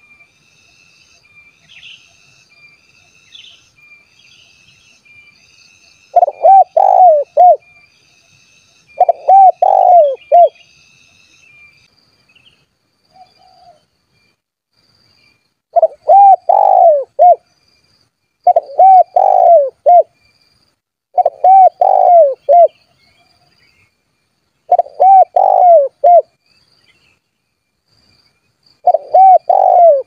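Spotted dove (tekukur) cooing: seven phrases of several rolling notes each, repeated every few seconds from about six seconds in. It is the dove's lively calling to rivals.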